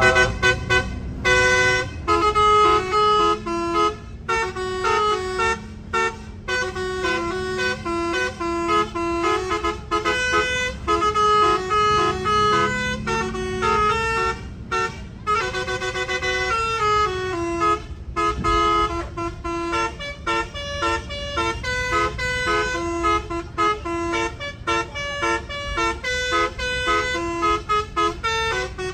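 Bus 'telolet' musical air horn playing a fast tune, its notes stepping up and down in quick repeated runs, over a low rumble.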